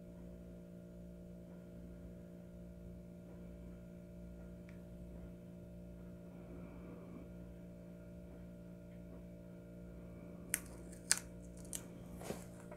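Faint steady electrical hum, then a few light clicks and taps about ten seconds in.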